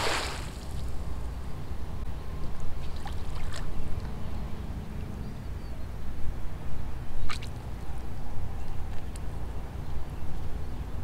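A cast net splashing down onto the water right at the start, the loudest sound here. Then a steady low rumble with a few faint ticks as the net's rope is hauled back in.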